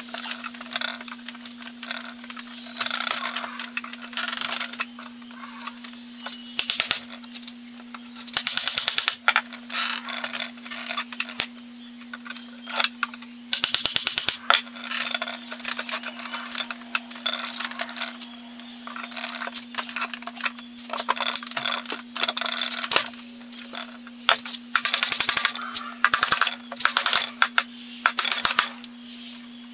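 Hammer and pry bar working nails out of an old wooden tool box: scattered sharp metallic clicks, clinks and short scrapes, with a steady low hum underneath.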